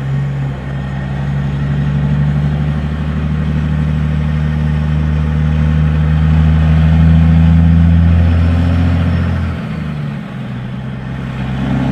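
Kenworth truck's diesel engine running with a low, steady note, slowly getting louder over the first seven seconds, then easing off briefly about ten seconds in before picking up again.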